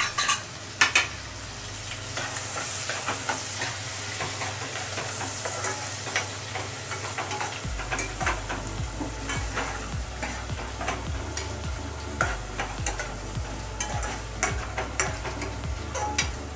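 Finely chopped onion sizzling in hot oil in a kadai, being sautéed until pink, with a steel ladle scraping and clicking against the pan as it is stirred. A few louder knocks of the ladle come in the first second.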